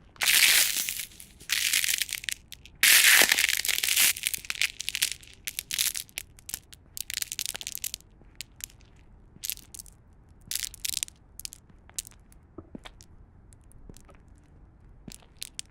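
Ice cracking and crunching: dense bursts of crackling in the first few seconds, thinning out to scattered sharp snaps and ticks.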